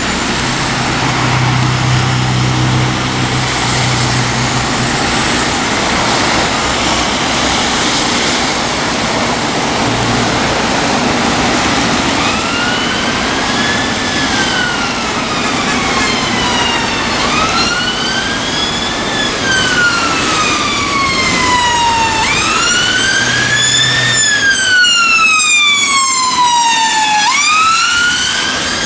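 A fire engine's engine runs for the first dozen seconds. Then a fire engine's electronic siren sounds on wail, its pitch rising and falling slowly about once every five seconds and getting louder.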